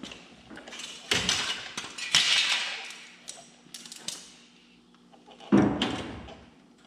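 Sheet-metal wheel arch repair panel being pushed and knocked into place in a pickup bedside's wheel opening: a series of hollow metal thumps and scrapes, the loudest about five and a half seconds in.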